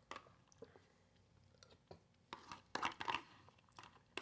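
A person eating chili with beans: chewing and mouth sounds in a few short bursts, loudest about two and a half to three seconds in.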